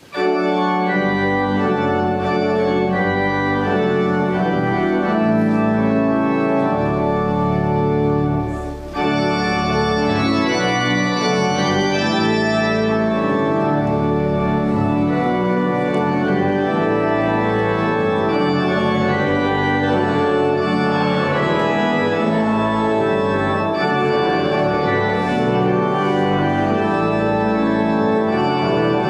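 Church organ playing the postlude: loud sustained chords, with a brief break about nine seconds in.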